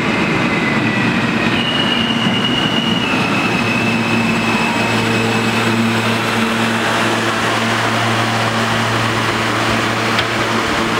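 R160 subway train pulling into a station and braking to a stop, running over the rails with a high electric whine that steps and falls in pitch as it slows. A steady low hum joins about halfway through.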